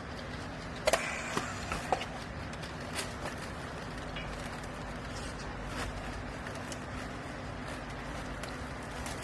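Steady machine hum with a low tone, typical of a baler's hydraulic power unit running, with a cluster of sharp knocks and clicks about a second in and a few lighter ticks after.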